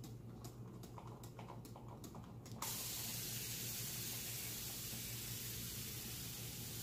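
Pump-pressurised continuous-spray water bottle: a few soft clicks as the pump is pressed to build pressure. About two and a half seconds in, a steady hiss starts as a constant fine mist sprays onto hair.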